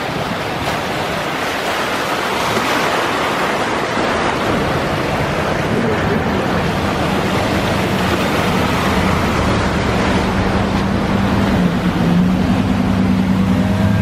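Steady rushing noise of heavy rain and floodwater, with a vehicle engine's hum coming in about halfway and growing louder near the end.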